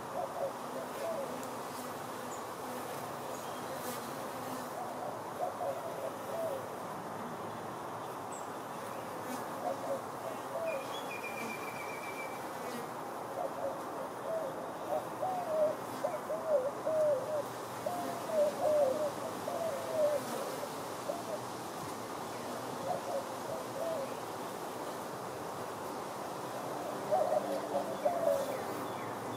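Honeybees flying around a hive entrance: a steady hum, with individual bees buzzing close by again and again, their pitch wavering as they pass. The close buzzes come thickest in the middle and near the end.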